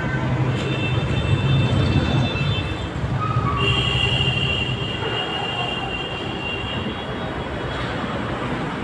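John Deere tractor's diesel engine running steadily, with high-pitched squealing tones sounding over it from about half a second in until about seven seconds in.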